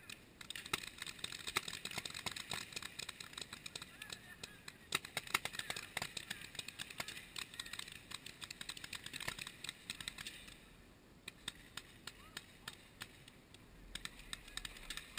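Paintball markers firing: many sharp pops in dense, irregular runs, thinning out about two-thirds of the way through and picking up again near the end.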